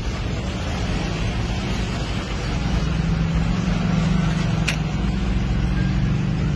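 A motor running with a steady low hum, and a single sharp click about four and a half seconds in.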